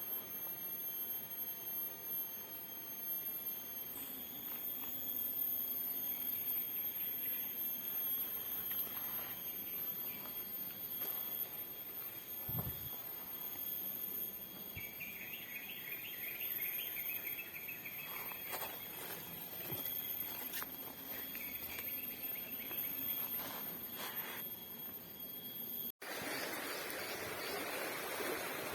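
Steady, high-pitched drone of insects, with a rapid chirping trill a little past the middle. Near the end it cuts to an even rush like flowing water.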